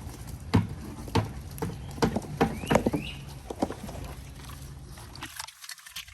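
Mangalitsa-cross pigs eating wet fermented feed from a trough: a series of irregular wet chomps and smacks, with a few short rising chirps.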